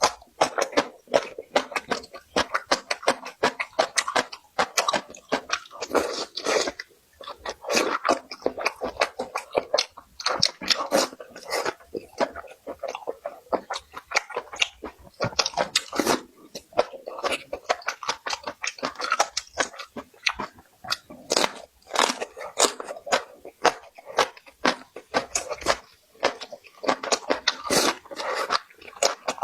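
Close-miked chewing and mouth noises of a person eating: a dense, irregular run of wet smacks and clicks.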